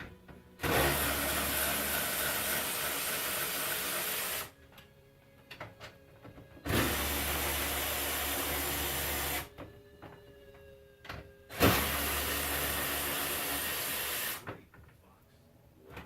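Cordless power tool running in three separate bursts of about three to four seconds each, backing out the three 12 mm bolts that hold the truck's hood-latch mechanism. Faint clicks of handling come between the bursts.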